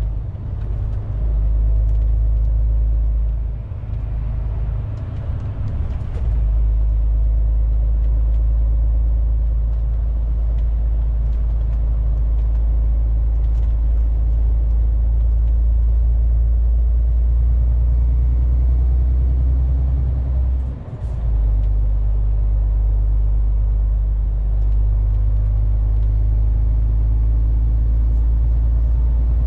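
MAN TGX 470 truck's straight-six diesel engine and road noise heard inside the cab while driving, a steady low drone. It drops out briefly about two-thirds of the way through, then carries on.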